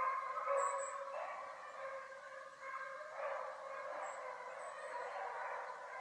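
A pack of beagles baying in chorus, several overlapping drawn-out voices rising and falling: hound music of the dogs running a rabbit's trail.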